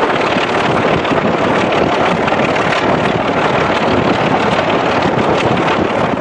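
Running noise of a train hauled by a British Rail Class 25 diesel locomotive at speed, heard from an open window just behind it: loud, steady rushing wind on the microphone mixed with the locomotive and wheels on the rails.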